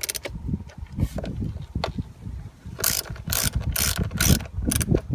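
Ratchet wrench clicking in a few short back-and-forth strokes, mostly in the second half, as the screw holding the new evap purge valve is tightened down. Wind rumbles on the microphone underneath.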